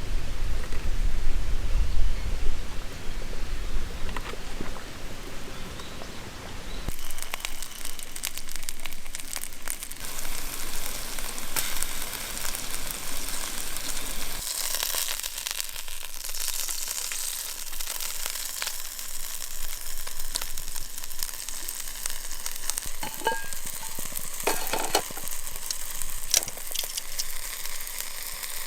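Food sizzling and crackling on a hot iron grill plate, with scattered small clicks. A low rumble covers the first several seconds, and then the sizzling takes over.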